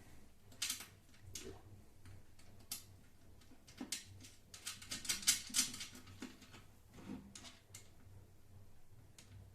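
Scattered small clicks and light knocks of metal hardware and parts being handled while a bolt and nut are fitted by feel during router table assembly, with a quick run of clicks about five seconds in.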